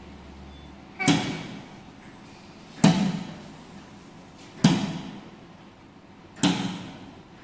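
Vending-machine locker compartment doors unlatching and springing open one after another, a sharp knock about every two seconds, four in all, as the machine releases a multi-item order.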